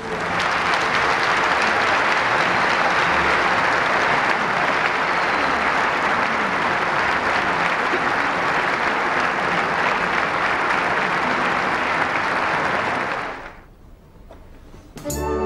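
A large concert audience applauding steadily, a dense, even wash of clapping that fades out about thirteen seconds in. After a brief lull, keyboard music starts near the end.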